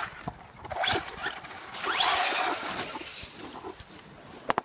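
Battery-powered RC car running, its electric motor rising in a short whine as its tyres scrabble on the ground, with two sharp clicks near the end.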